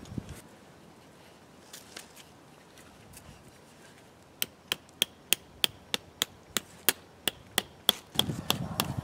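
About a dozen quick, evenly spaced chops of a blade into a thin wooden stick, roughly three a second, starting about halfway in; rustling follows near the end.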